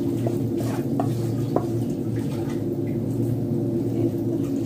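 Spoon scraping and clinking against a wok and a glass bowl as toasted-flour topping is pushed out and spread, with several short clinks in the first two seconds. A steady low hum runs underneath.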